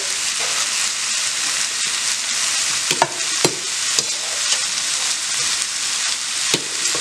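Tomatoes, onion and dried chiles sizzling in a wok, a steady hiss, with a few sharp clinks of a metal spoon scooping them out, about three to four seconds in and again near the end.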